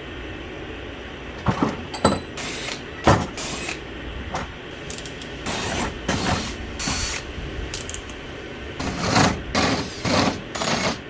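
Hand-tool work at a workbench: a series of short, scratchy, ratchet-like mechanical strokes at an irregular pace, with three strong ones close together near the end.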